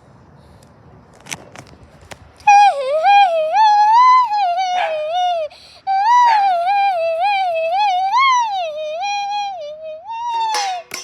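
A high, wavering wail from a voice, siren-like, in two long stretches with a brief break between them. The pitch slides irregularly up and down. A few sharp clicks come before it and near its end.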